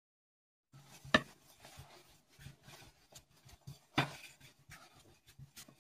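Thin wooden rolling pin (oklava) rolling out a sheet of dough on a tabletop: soft rubbing and light clicks, with two sharp wooden knocks, about a second in and again about four seconds in. It starts after a short silence.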